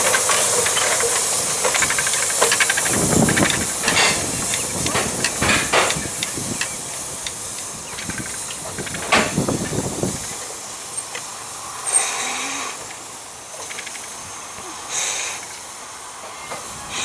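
Double Fairlie steam locomotive Merddin Emrys hissing steam from its open cylinder drain cocks as it moves, with irregular knocks and louder bursts. The hiss dies down after about ten seconds, leaving a few short puffs.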